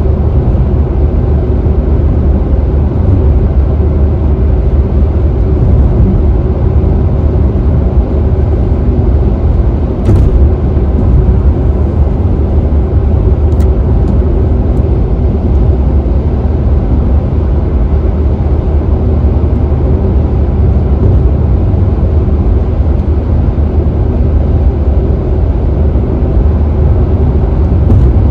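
A car cruising at freeway speed: steady tyre and road noise with a deep, even rumble.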